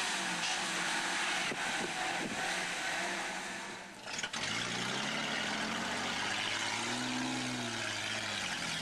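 Dodge 4x4 truck's engine working off-road: for the first half a steady rushing noise covers a low engine note, then after a short dip the engine revs up and falls back once.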